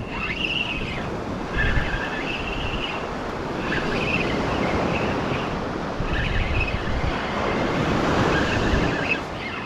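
Surf breaking and washing up the beach with wind buffeting the microphone, the wash swelling and easing. Short high tones come and go over it.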